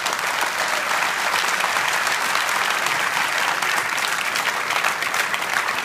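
Crowd applauding, steady and dense clapping.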